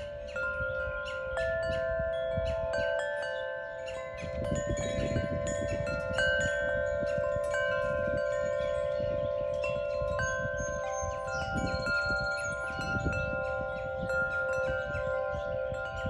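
Wind chimes ringing, with many long, overlapping notes struck at scattered moments, over a low rumble.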